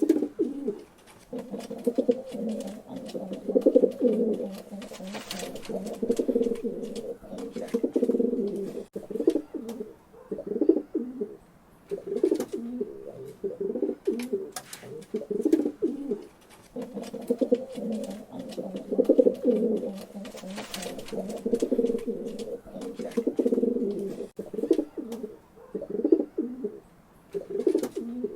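Several pigeons cooing continuously, low rolling calls overlapping one another, with scattered light clicks.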